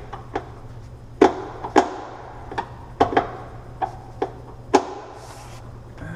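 Sharp wooden knocks and clicks, about ten, from a kitchen cabinet door on European hinges being worked while the hinge is adjusted, with a brief soft hiss near the end.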